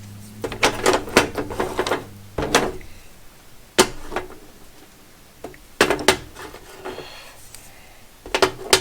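Packaged wire brushes with plastic handles being handled and set down on a work surface: a quick run of clicks and knocks in the first two seconds, single knocks about four and six seconds in, and two more near the end.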